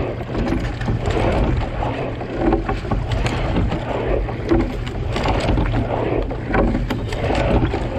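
Water rushing and splashing along a racing single scull's hull at the waterline, surging with each rowing stroke about every two seconds, over a steady low rumble.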